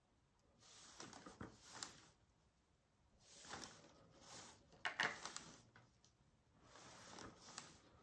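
Faint scratchy brushing of a thin paintbrush working acrylic paint, on the canvas and on a plastic palette, in three short spells of strokes. A few light taps of the brush against the palette about five seconds in are the loudest sounds.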